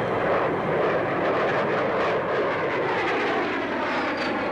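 Avro 707B delta-wing research jet, with its single Rolls-Royce Derwent turbojet, flying past: a steady, loud rushing jet noise, with a faint high whine falling in pitch near the end.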